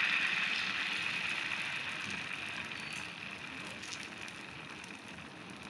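Rice-and-drumstick-leaf adai batter sizzling on a hot tawa, the sizzle fading steadily as the batter settles.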